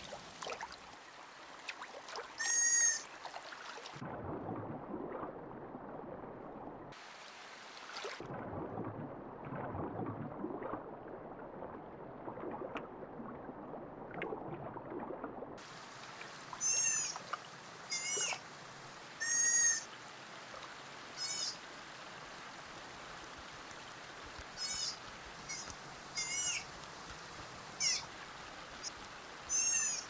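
Otter calls: short, high-pitched squeaks and chirps. One comes about three seconds in, then a stretch of lower, rough noise follows, and a string of squeaks a second or two apart fills the second half.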